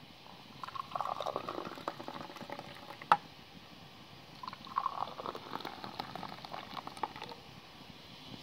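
Black tea poured from a glass teapot into two small glass tea glasses, one after the other, the stream splashing as each glass fills. A single sharp click comes between the two pours.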